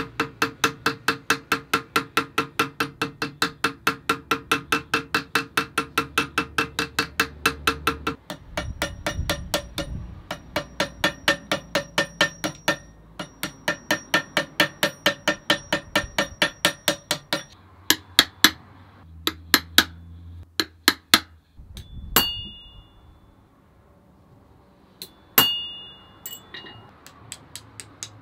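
A hammer striking in a fast, even rhythm of about four to five blows a second, each with a short ringing tone; the pitch of the ring shifts about eight seconds in. After about seventeen seconds the blows become slower and irregular, with pauses and a few light high clinks.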